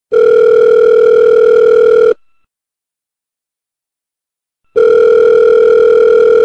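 Telephone ringback tone: two steady, loud two-second rings about two and a half seconds apart. The call is ringing and has not been answered.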